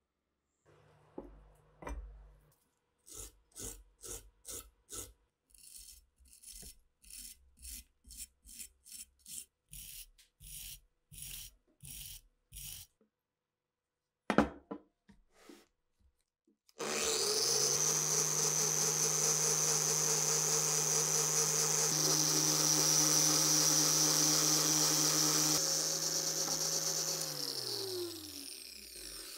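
Hand rubbing or filing strokes on a metal part, about two a second for some ten seconds, then a single sharp knock. A small high-speed rotary tool then runs with a steady high whine for about ten seconds and winds down near the end.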